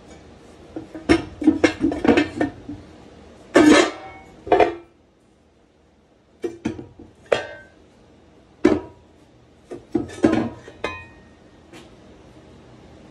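Irregular metal knocks and clanks from a cut-open scuba tank being handled, some with a short metallic ring. They come in bunches, with a quiet pause about halfway through.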